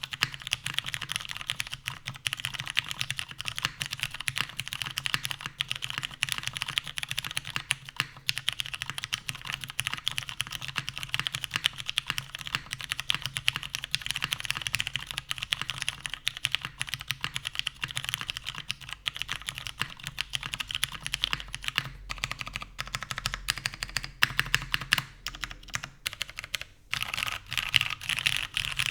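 Fast continuous typing on a mechanical keyboard with tactile Cherry MX Ergo Clear switches, lubed and filmed, in a top-mounted aluminium plate with Cherry doubleshot keycaps. A dense stream of keystrokes with a few brief pauses, one shortly before the end.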